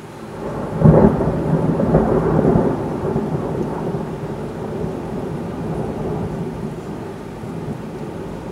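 Thunder: a loud crack about a second in, followed by a long rolling rumble that slowly fades.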